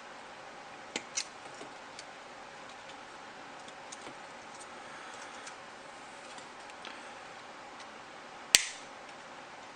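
Flat side cutters nipping plastic model-kit parts off the runner: a few sharp snips, two close together about a second in and the loudest one near the end, with small clicks of plastic parts being handled between them.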